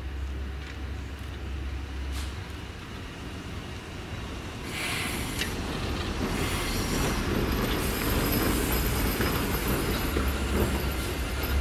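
Vintage green SBB electric locomotive rolling slowly through the depot tracks, its wheels and running gear rumbling and rattling, with a faint squeal from the wheels; it gets louder from about five seconds in as it passes close by.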